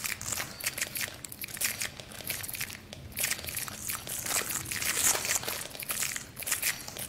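Dense, irregular crackling and crinkling, swelling and fading in bursts every second or so, over a faint low hum.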